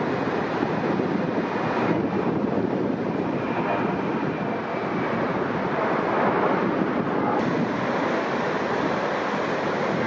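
Strong wind buffeting the microphone over the steady noise of heavy surf breaking.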